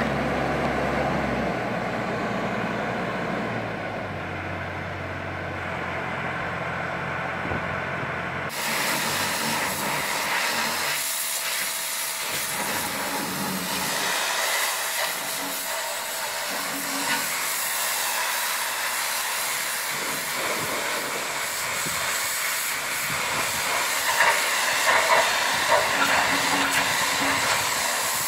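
A boat hoist's engine runs with a steady low note for the first few seconds. Then, about eight seconds in, a pressure washer starts with a sudden loud hiss as its jet sprays the hull of a boat just lifted from the water, and the hissing spray keeps going, with spattering against the hull.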